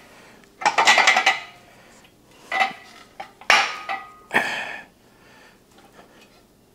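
Steel parts of a shop crane clanking and rattling as they are worked on by hand: a longer metallic clatter about a second in, then three single ringing clanks, ending about two seconds before the close.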